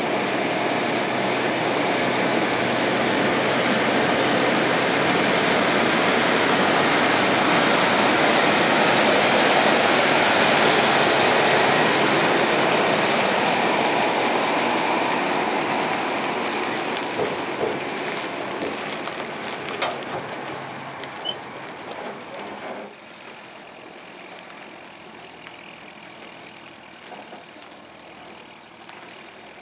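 Heavy-haulage Kenworth T950 truck with a low-loader trailer driving past: the diesel engine and tyres grow loud as it passes, then fade as it pulls away. A few knocks and rattles come about two-thirds through, and the sound drops off suddenly near the end.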